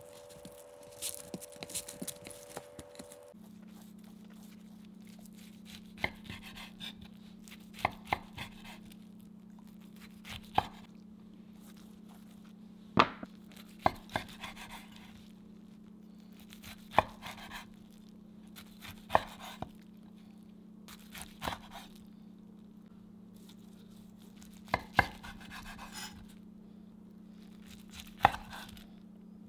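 Kitchen knife slicing through a roll of gimbap and knocking on a wooden cutting board: about ten sharp knocks, one every two to three seconds, each with a short scraping rasp as the blade cuts through the seaweed. For the first three seconds, a bamboo rolling mat rustles as the roll is pressed. A steady low hum runs underneath.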